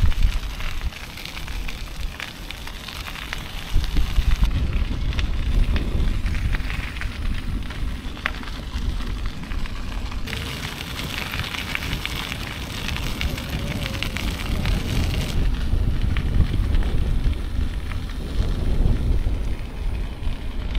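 Bicycle tyres rolling over a gravel and dirt path, a steady crunching crackle over a heavy low rumble of wind buffeting a bike-mounted camera's microphone. The crackle changes character abruptly a few times.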